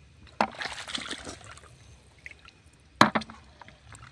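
Shallow water splashing twice, about half a second in and again about three seconds in, as someone wades through a weedy pond.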